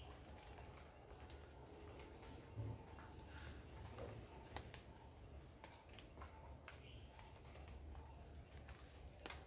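Quiet garden ambience: a steady, faint, high-pitched insect drone, with a short double chirp about three and a half seconds in and again about eight seconds in, and a few faint clicks.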